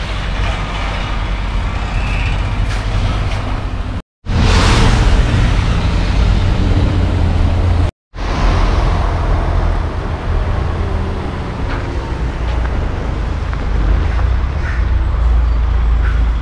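Street traffic on a wet, slushy road: tyres hissing and engines running, over a steady low rumble of wind on the microphone. The sound cuts out abruptly twice, briefly, about four and eight seconds in.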